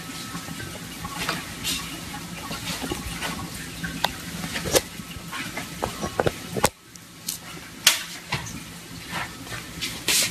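Cardboard box rustling and scraping, with scattered sharp clicks, as a cat shoves its head around inside it, over a steady low hum.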